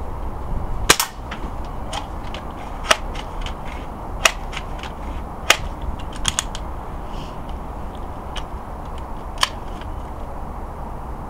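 Crosman M417 multi-pump .177 air rifle firing once about a second in with a sharp crack. Several lighter clicks follow, the loudest near 3, 4, 5.5 and 9.5 seconds in.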